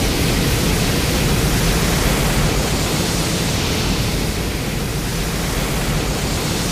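Loud, steady rushing noise with no pitch to it: a designed sound effect for a fictional flying kaiju.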